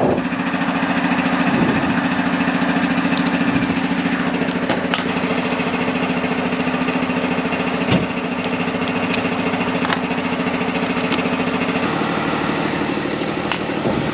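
An engine running steadily at idle, its tone shifting slightly about twelve seconds in, with a few light clicks over it.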